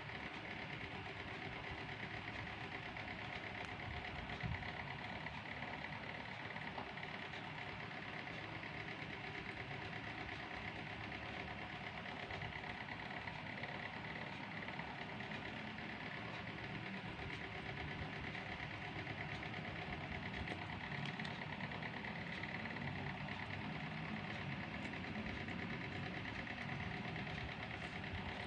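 A steady machine hum with a fast, even flutter, running unchanged throughout.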